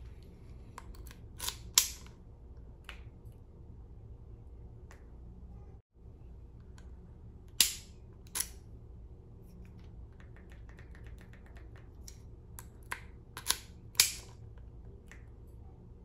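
Sharp clicks and taps of a plastic ignition key switch, its key and mount being handled and fitted, loudest about two seconds in, near eight seconds and around fourteen seconds, over a low steady hum.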